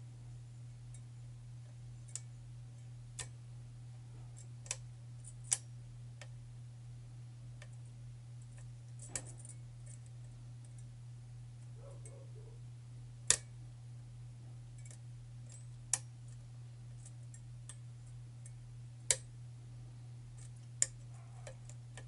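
Hook pick working the pins of a custom pin-tumbler challenge lock with a very restricted paracentric keyway: sharp, irregular metallic clicks, about nine of them, a second or a few apart, over a steady low hum.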